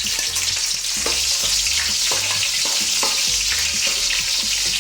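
Garlic sizzling in hot oil in a pan while it is stirred, a steady hiss with a spoon clicking against the pan two or three times a second.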